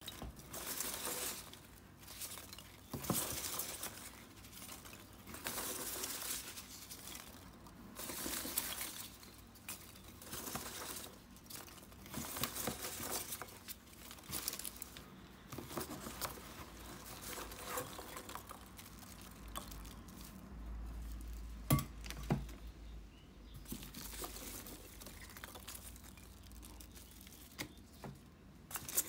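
Polystyrene packing peanuts and plastic wrapping rustling and crinkling in a cardboard box as they are moved about, in irregular bursts. A single sharp knock stands out about three-quarters of the way through.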